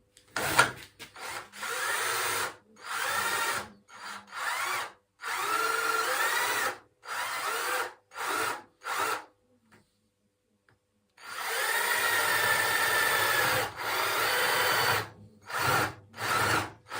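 Electric drill boring into wood in a string of short bursts, each one rising in pitch as the motor spins up, with a longer run after a brief pause.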